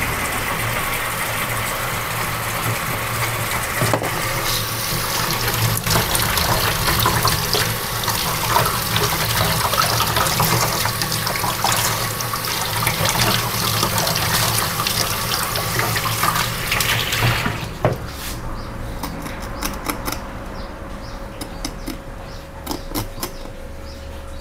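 Tap water running into a sink as a gutted fish is rinsed of blood under the stream, with small knocks of handling. The tap shuts off suddenly about three-quarters of the way through, leaving scattered light knocks and scraping.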